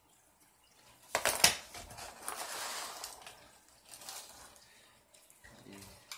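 Small hard parts and tools clattering and clicking on a work surface: a quick cluster of sharp clicks a little over a second in, then a scraping, rustling stretch and a few more light clicks.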